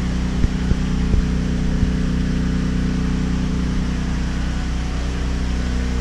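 A 7000-running-watt gasoline generator running with a steady engine hum while it powers the aquarium pumps. A few light knocks come in the first two seconds.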